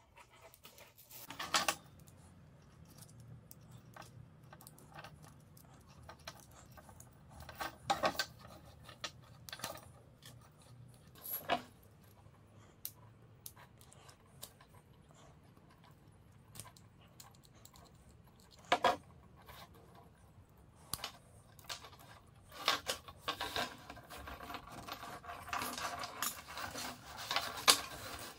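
Flexible corrugated stainless-steel hose and its brass fitting being handled on a wooden workbench: scattered metallic clinks, knocks and rattles of the hose coils. Over the last several seconds the clinking and scraping of metal grows denser.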